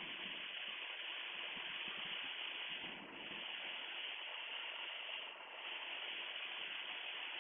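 Steady in-flight cabin noise of a Piper Comanche 250 in descent: engine, propeller and airflow blended into an even rushing hiss, dipping briefly twice, about three and five and a half seconds in.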